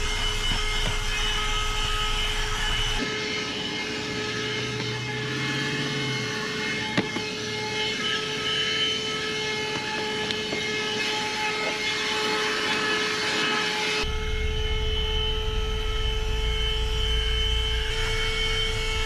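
Small handheld 12-volt car vacuum, powered from the cigarette lighter, running steadily with a constant whine as it is worked over floor carpet; it is low-powered. A single sharp click about seven seconds in.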